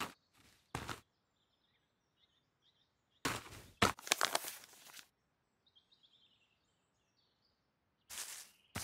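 Paper map rustling for about two seconds as it is handled, over faint birdsong. Footsteps swishing through tall grass begin near the end.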